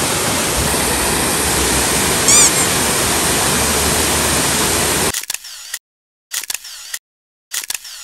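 A waterfall pouring, a steady rush of water with one brief high chirp about two seconds in. The water cuts off suddenly about five seconds in. Three short camera-shutter-like sounds follow, with silence between them.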